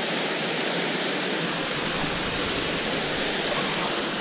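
Mountain river rushing over rocks, a steady, even rush of water.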